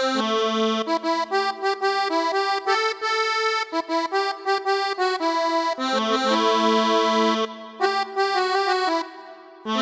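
Sampled accordion-style keyboard sound from a Kontakt library, playing a cumbia melody of held notes and chords without pitch bend; it stops about 9 seconds in.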